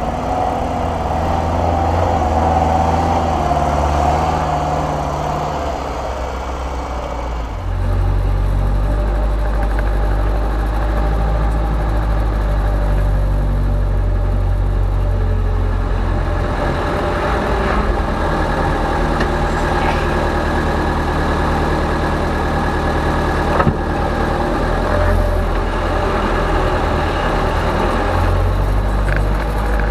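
Unimog 421's four-cylinder diesel engine running steadily at low revs through off-road trial ground. About eight seconds in the sound changes abruptly to a deeper, steadier engine note heard from inside the cab. A single sharp knock comes about two-thirds of the way through.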